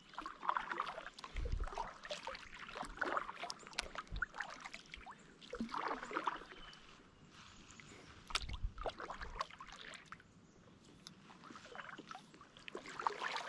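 Kayak paddle strokes: the blade dipping and splashing in the lake water at uneven intervals, with a few dull low thumps.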